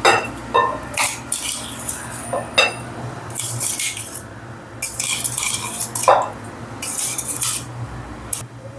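A metal spoon scraping and clinking inside a small steel grinder jar as coarsely ground red chilli and garlic is scraped out into a bowl, in irregular short strokes.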